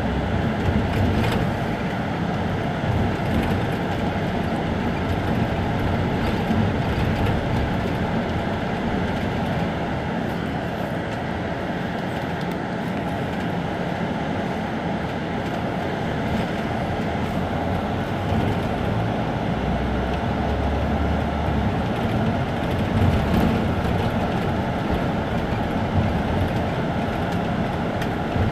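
Isuzu Turquoise midibus's diesel engine idling steadily while the bus stands at the kerb.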